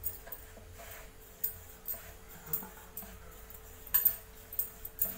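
Wooden rolling pin rolling out stuffed paratha dough on a wooden board: irregular light knocks and clicks with bangles clinking on the wrists, the loudest pair of knocks about four seconds in, over a faint steady hum.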